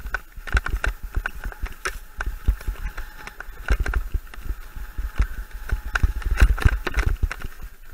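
Mountain bike descending a rough dirt singletrack, recorded from the rider's camera: frequent irregular knocks and rattles from the bike and camera mount over bumps, over a constant low noise of tyres and wind.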